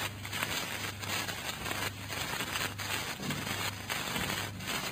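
Background noise of a 1940 radio-address recording between sentences: steady hiss and crackle with scattered clicks over a steady low hum.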